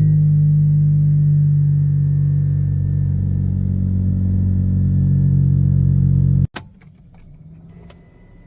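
Mazda RX-8's two-rotor Renesis rotary engine idling steadily with a deep, even hum, then stopping abruptly about six and a half seconds in, followed by a few faint clicks.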